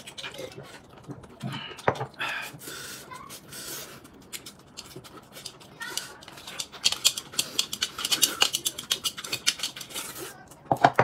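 Eating sounds: noodles being slurped and chewed, with a run of quick wet smacks and slurps that grows densest in the second half. Slurping from a noodle bowl comes near the end.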